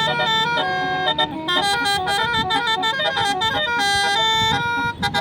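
Bus 'telolet' horn, a multi-tone air horn playing a quick tune of stepped notes, with a short break just before the end.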